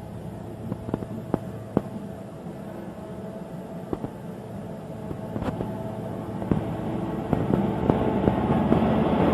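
Large mining excavator's diesel engine running, with sharp metallic knocks and clanks from the machine working, the engine noise swelling louder in the second half.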